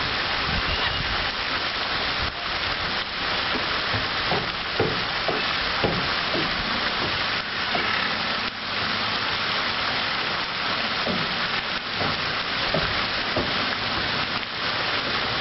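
Multi-jet pond fountain spraying, its jets falling and splashing onto the water in a steady rushing hiss.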